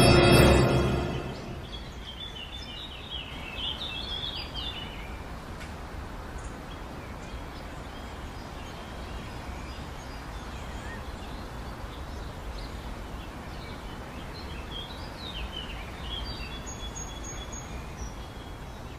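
Music fades out in the first second or so, leaving steady outdoor background noise with birds chirping in two spells, around three to four seconds in and again near the end.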